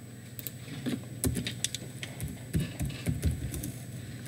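Typing on a computer keyboard: irregular keystroke clicks with a few heavier key thuds.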